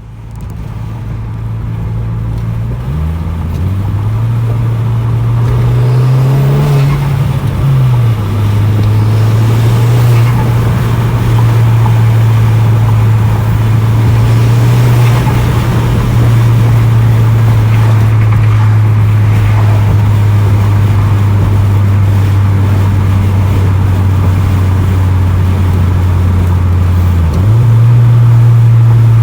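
Turbocharged Volkswagen Golf engine running with a steady low drone that shifts in pitch a few times: a step up about three seconds in, a brief rise and drop around seven to eight seconds in, and another step up near the end.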